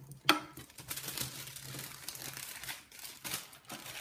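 Close rustling and crinkling of something being handled, beginning with a sharp knock about a third of a second in and going on in many small irregular crackles.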